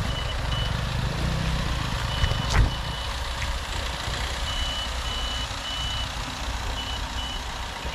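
A vehicle's electronic reversing beeper sounds a high tone in short groups of quick beeps, over the low rumble of a slow-moving car. One sharp knock comes about two and a half seconds in.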